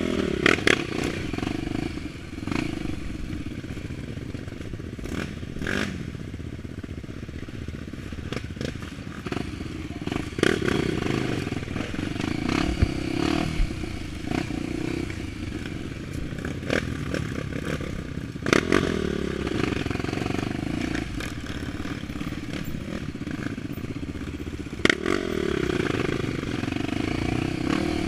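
A Honda XR 250 Tornado's single-cylinder four-stroke engine, bored out to 280cc, running on an off-road trail. Its note rises and falls as the throttle opens and closes, and sharp knocks and clatter come every few seconds as the bike goes over rough ground.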